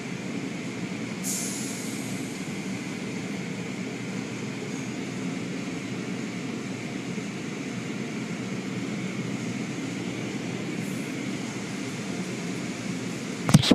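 Automatic car wash running over a car: a steady rumble of spraying water and wash machinery, with a short hiss about a second in and a sharp knock near the end.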